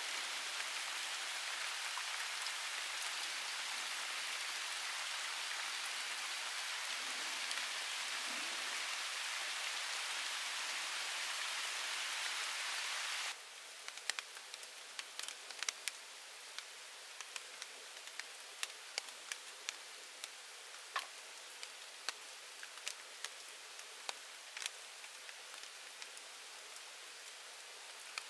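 Steady rain falling in dense forest. About halfway through it gives way abruptly to a quieter background hiss with many scattered sharp ticks.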